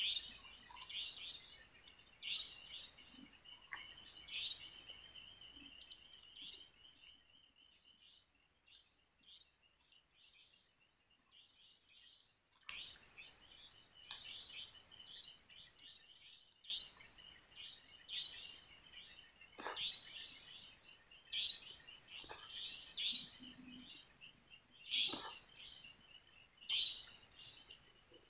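Faint chirping of small birds, short high calls repeating every second or so, thinning out for a few seconds midway, over a steady thin high-pitched tone. A few soft knocks come later on.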